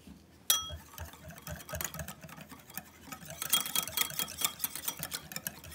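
Metal wire whisk beating a thin oil-and-vinegar dressing in a ceramic bowl: rapid, uneven clicking and tapping of the wires against the bowl, with a brief ringing ping at the harder hits. It starts with a sharp click about half a second in and gets louder and faster after about three and a half seconds.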